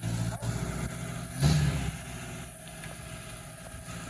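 Off-road 4x4's engine running low and steady, with a brief louder surge of revs about a second and a half in.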